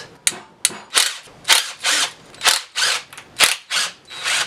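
Cordless power driver run in short bursts, about two a second, backing out the 9/16-inch bolts of a Dana 20 transfer case's rear housing.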